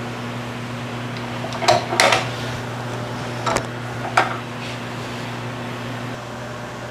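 A handful of sharp metal clanks from steel parts being handled and set down, over a steady electrical hum from shop equipment that eases slightly near the end.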